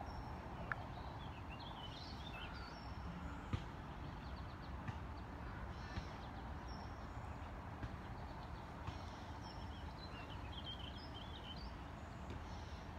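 Outdoor ambience: small birds chirping in two short spells, a couple of seconds in and again around ten seconds, over a steady low background hum, with a few faint clicks.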